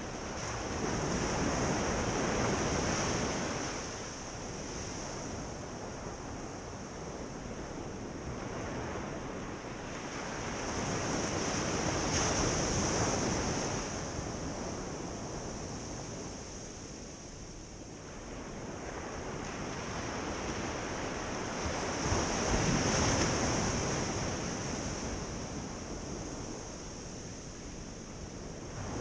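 Ocean surf: waves breaking and washing up the beach, swelling louder three times, roughly every ten seconds, over a steady high hiss.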